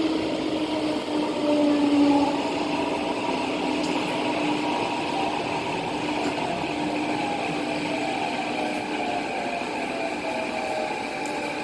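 Metro train running, heard from inside the carriage: a steady rumble and hiss with several whining tones that slowly fall in pitch.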